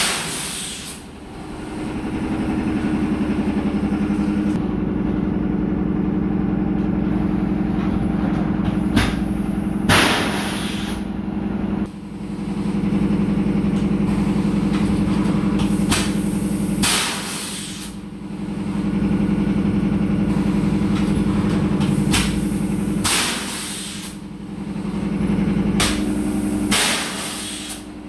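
Machinery in a plastic bottle factory running with a steady low hum that swells and sags every few seconds, broken by several short, loud hisses.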